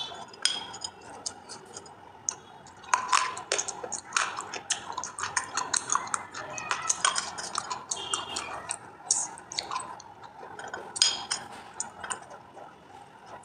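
Close-up crunching of hard dried clay being bitten and chewed: many sharp, crisp cracks in quick irregular runs, the loudest snaps about 3 and 11 seconds in.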